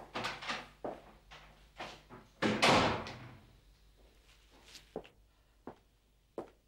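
A door banging shut about two and a half seconds in, the loudest sound, with a short ringing tail. Before it come a few short knocks and clicks, and after it a few sharp footsteps on a hard floor.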